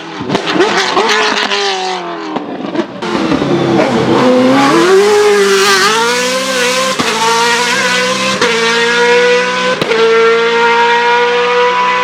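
Racing car engine on a hillclimb run: the engine note drops over the first few seconds as the car slows for a bend, then it accelerates hard, the pitch rising steadily with three quick upshifts about a second and a half apart.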